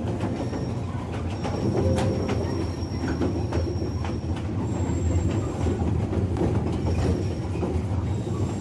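Park toy train running along its track: a steady rumble of wheels on rails, with scattered clicks from the rail joints.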